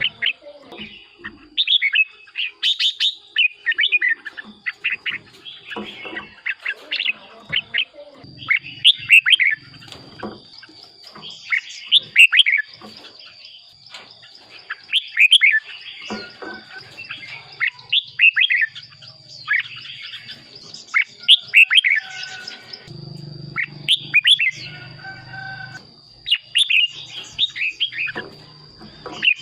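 Red-whiskered bulbul singing: short, bright warbled phrases of quick gliding notes, repeated every second or two in a lively song bout.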